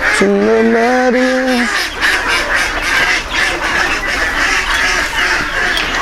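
A crowded poultry flock calling continuously, many birds at once, with one long, loud call lasting about a second and a half right at the start.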